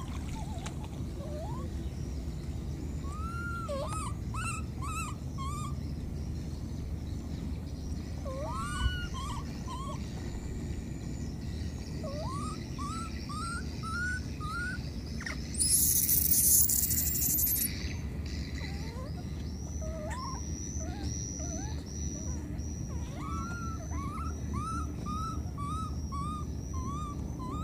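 Baby monkey crying: short, high calls that each rise and then fall, repeated in runs of three to six with pauses between. About halfway through, a louder rush of hiss lasts about two seconds.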